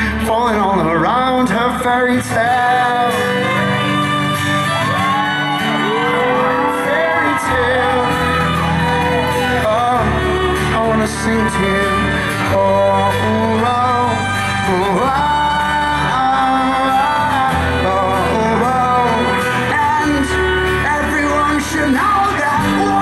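Live rock band performance: a male lead vocal sings a melody into the microphone over acoustic guitar and a steady low accompaniment, amplified through the hall's sound system.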